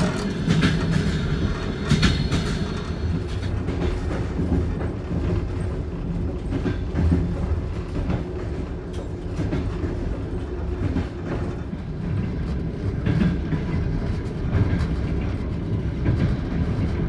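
Cabin noise of a moving Ammendorf-built compartment sleeping car: a steady low rumble from the running gear, with the clickety-clack of the wheels over the rail joints.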